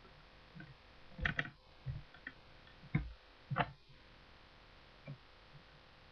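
A handful of irregular short knocks and clicks, the loudest a quick pair a little over a second in and two more about three and three and a half seconds in.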